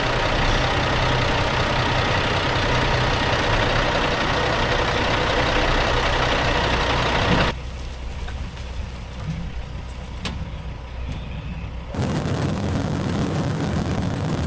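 Semi truck's diesel engine running at low speed as the truck creeps downhill loaded with wet corn. About halfway through the sound drops away sharply to a much quieter stretch with a few faint clicks, then the engine sound returns near the end.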